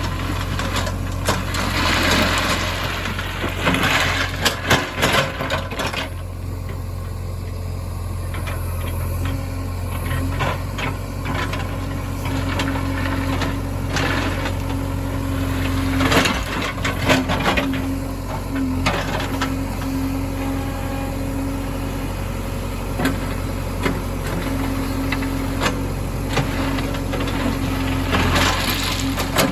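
Heavy diesel engine running steadily while stones clatter and crash at intervals, in clusters near the start, in the middle and near the end, as stone is loaded or dumped.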